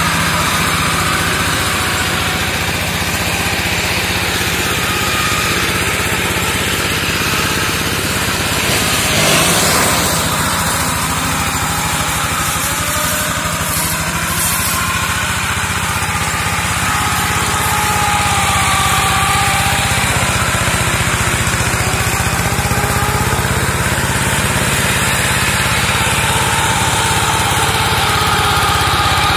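Engine of a two-wheel hand tractor converted into a brush mower, running steadily under load as its blade cuts through dense brush and saplings, with a brief louder crack about nine seconds in.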